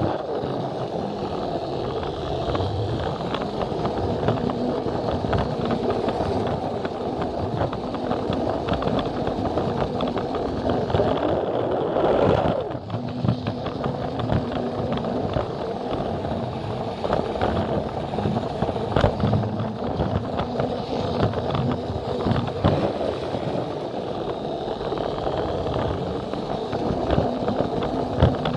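Plarail battery-powered toy train running along plastic track: a small motor whirring steadily while the wheels click and rattle over the rail joints.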